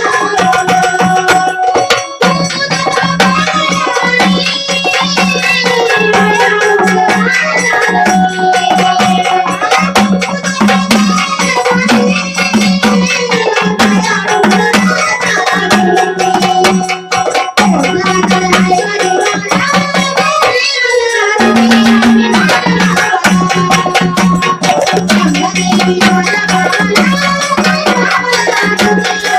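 Gondhal devotional folk music: a sung melody over a steady low drone and busy hand-drum and jingle percussion, with a brief break in the drone about three-quarters of the way through.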